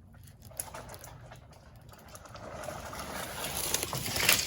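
Felled poplar tree coming down: a rustle of branches and leaves swishing through the surrounding growth builds steadily and peaks about four seconds in, as the trunk hits the ground.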